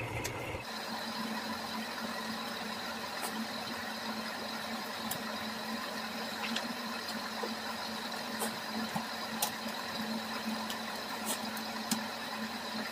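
Steady hum with a hiss, dotted with a few faint light clicks and taps as the plastic keyboard case, membrane sheet and controller board are handled.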